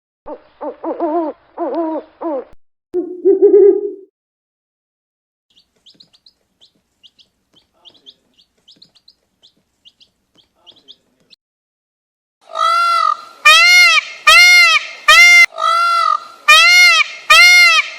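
A sequence of different animal calls. Near the start there are a few pitched calls and a low hoot. A faint run of high chirps follows in the middle, then a loud series of about eight arched, repeated calls over the last six seconds.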